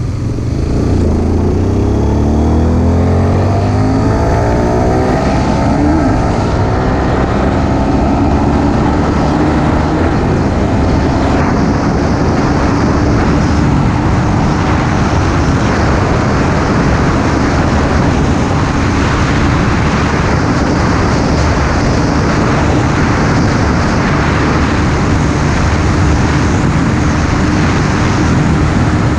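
Honda Supra GTR 150 Fi's 150 cc single-cylinder engine under full throttle, rising in pitch as it accelerates through the gears for the first few seconds. From there it holds a steady drone in top gear near its top speed, under a heavy rush of wind on the microphone.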